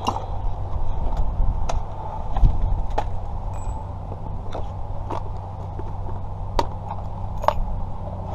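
Scattered sharp metallic clicks and taps, about a dozen at irregular intervals, from tools being handled at a car's ignition lock, over a steady low hum.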